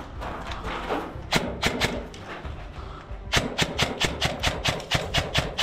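Airsoft rifle firing: a couple of shots about a second and a half in, then a rapid string of shots, about four to five a second, from a little past halfway.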